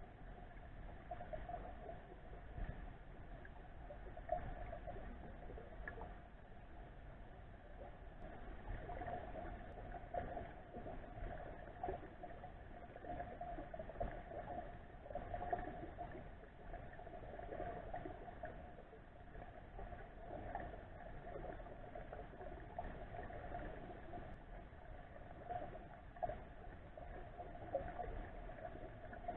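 Muffled underwater sound picked up by an action camera in its waterproof housing: a steady hum of water noise with scattered faint clicks.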